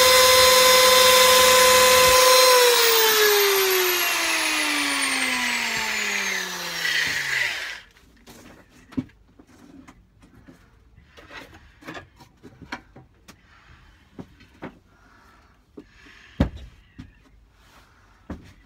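Electric power drill running with a steady high whine, switched off about two and a half seconds in and winding down in falling pitch over about five seconds until it stops. Then scattered light knocks and clicks of handling, with one sharper knock near the end.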